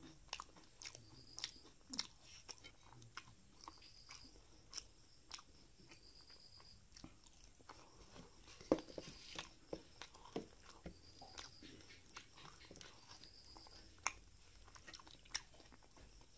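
Quiet chewing of a mouthful of rice and curry, with irregular short wet clicks and smacks from the mouth and from fingers mixing rice on a steel plate; the loudest click comes a little before the middle.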